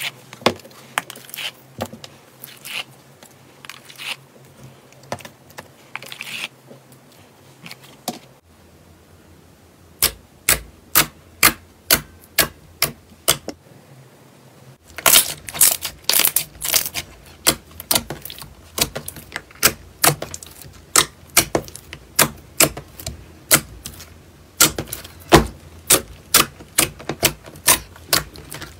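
Slime being pressed and squished, making a string of sharp clicking pops, about two a second for much of the time.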